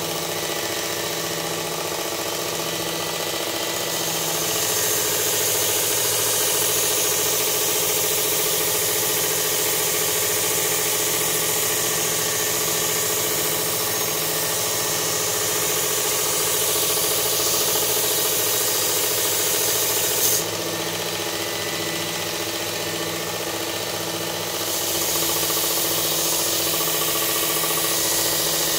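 Work Sharp Ken Onion belt sharpener with the blade grinding attachment running on its fine belt. There is a steady motor hum, and a steel knife edge hisses against the moving belt. The grinding hiss grows louder a few seconds in, breaks off around two-thirds of the way through, and picks up again near the end.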